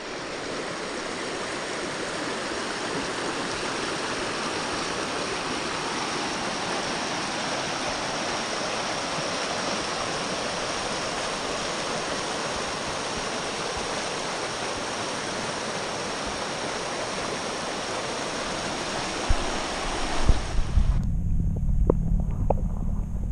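Steady, even rush of flowing water, such as river rapids or a waterfall. About 20 seconds in it cuts off and gives way to wind buffeting the microphone, with a few knocks.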